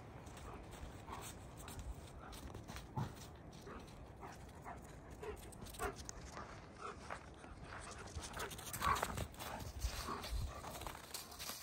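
Two dogs moving about in snow: faint panting and scattered soft paw steps, a little louder near the end.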